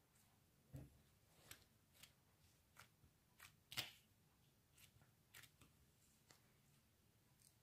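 Butter slime being pressed and squished by hand against a plastic tablecloth, giving faint, irregular little clicks and pops as it sticks and lets go, about one every half second to second, the loudest a little under four seconds in.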